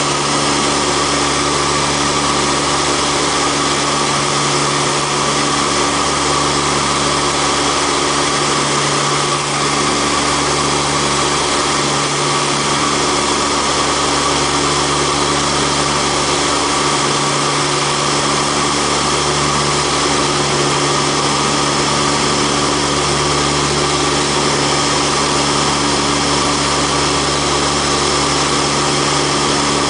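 Antonov An-32's twin Ivchenko AI-20 turboprop engines running steadily in flight, heard inside the cockpit: a constant drone with several steady tones over a rushing noise.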